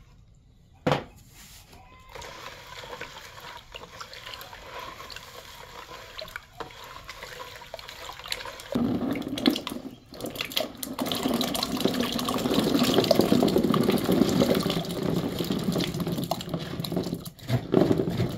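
A hand swishing in salt water in a plastic bucket, then from about nine seconds in a boxful of black olives poured into the brine, tumbling and splashing continuously.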